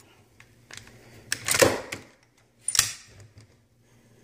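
Metal-and-polymer handling clacks from an AR-15 as a PMAG is seated in the magazine well: a scraping clack about one and a half seconds in and a sharp metallic click near three seconds, with a few lighter clicks.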